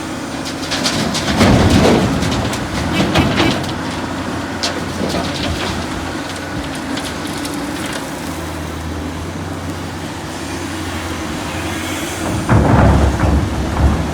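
Heavy excavator working: a steady diesel engine drone, with louder bursts of rumbling and clattering about two seconds in and again near the end.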